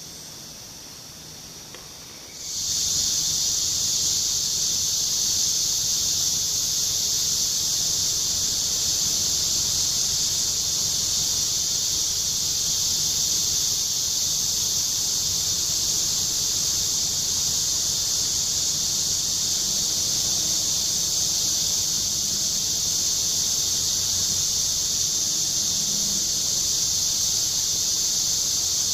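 A steady, high-pitched insect chorus, a continuous shrill drone of the kind tropical forest insects make. It starts abruptly about two and a half seconds in, over fainter background before.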